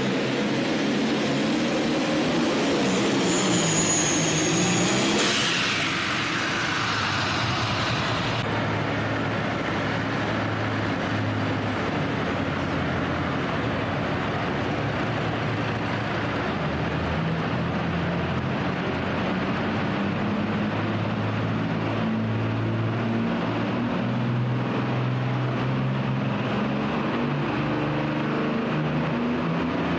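Light limited super stock pulling tractor's turbocharged diesel running flat out under load, with a high turbo whistle. About five seconds in, the throttle comes off and the turbo whine falls steadily in pitch as the engine winds down. After that, a pulling tractor's diesel runs at low revs with a steady rumble.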